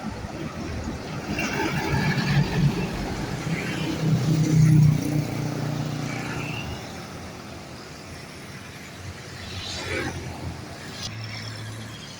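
Heavy vehicle's diesel engine pulling away past the microphone. The engine grows louder to a peak about four to five seconds in, then fades.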